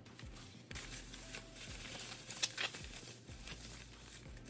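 Handling noise from a returned PSA grading submission being unpacked: rustling with a few light clicks, and one sharper click about two and a half seconds in.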